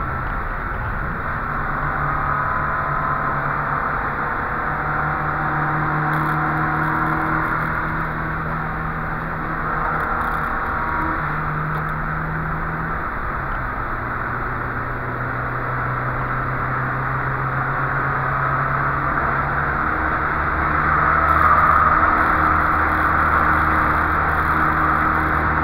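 Volvo 144S's four-cylinder engine under load, heard from inside the cabin over wind and tyre noise. About halfway through the engine note drops sharply, then slowly climbs again, and the wind and road noise swell a little near the end.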